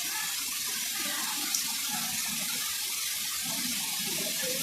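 Waterfall rushing with a steady, even hiss of falling water.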